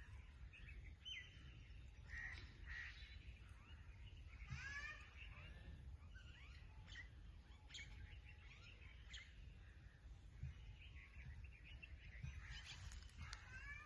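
Songbirds chirping and calling faintly, many short whistled notes scattered throughout, over a steady low rumble.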